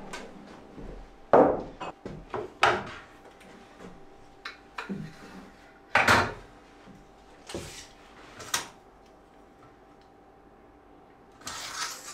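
A stainless gas hob being set down and shifted on a wooden worktop: a series of separate knocks, clunks and scrapes, the loudest about a second and a half in and again at six seconds, with a longer rubbing scrape near the end.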